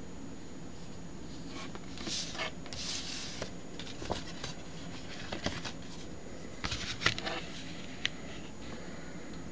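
Paper scratch-off lottery ticket being handled and shifted on a table: a few short rustles and light clicks, over a steady low hum.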